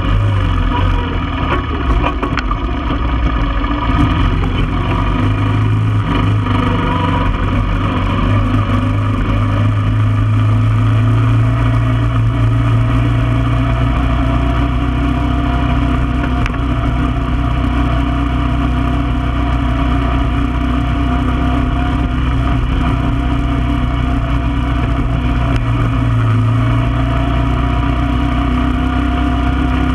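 1995 Honda Foreman ATV's single-cylinder four-stroke engine running steadily under way at a cruising pace, its pitch drifting slightly up and down.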